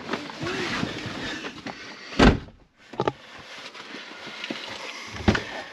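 Someone climbing into a pickup truck's cab, with clothing and seat rustling, then the door slamming shut a little over two seconds in. Two lighter knocks follow, one about a second later and one near the end.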